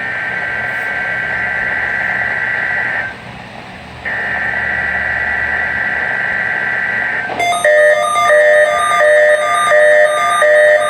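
Two bursts of a NOAA Weather Radio SAME header, the buzzy two-tone digital data screech, each about three seconds long with a one-second gap between them. From about seven seconds in, a repeating electronic beeping tune takes over.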